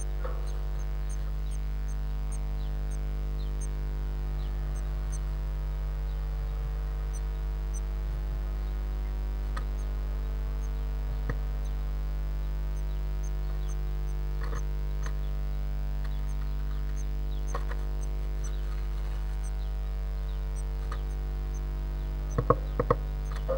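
Steady low electrical hum from the nest-box camera's microphone, with a few soft knocks and scratches of a blue tit moving about on the wood of the box, and a quick cluster of sharper knocks near the end.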